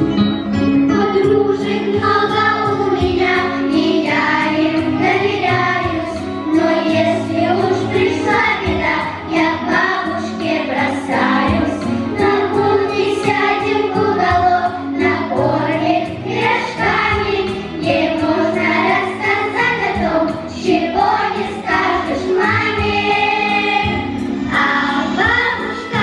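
A large children's choir, mostly girls, singing a song together through microphones, with a musical accompaniment underneath.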